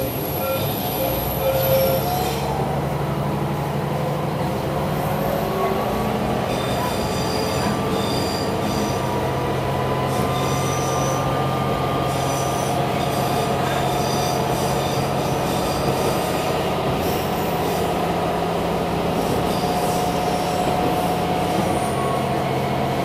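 An AN8800-series diesel railcar heard from inside the cabin while under way: a steady low engine drone and the noise of the wheels on the rails, with thin high tones coming and going over them.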